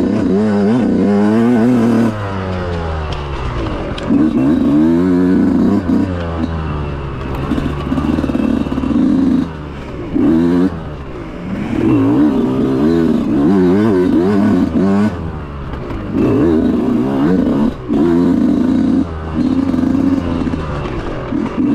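Enduro dirt bike engine revving up and easing off over and over, its pitch swinging up and down with constant throttle changes, with several brief drops where the throttle is shut off.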